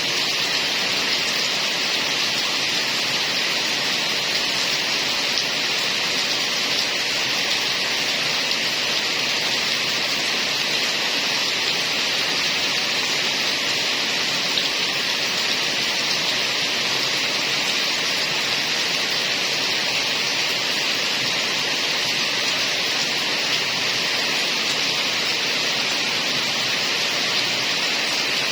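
Heavy rain falling steadily in a constant, even hiss.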